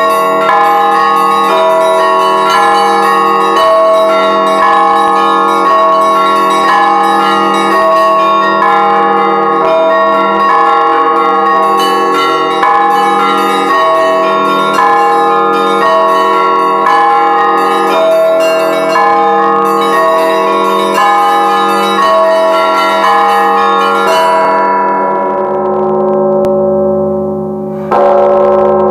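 Church bells ringing: several bells of different pitches struck over and over in an even pattern, about two strokes a second. Near the end the striking stops and the bells ring on and fade, then one more loud stroke sounds just before the end.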